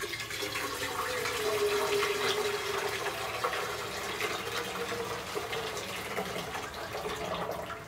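Just-boiled water poured into a saucepan in one steady, continuous pour that stops near the end, scalding the pan clean before the pasta is cooked.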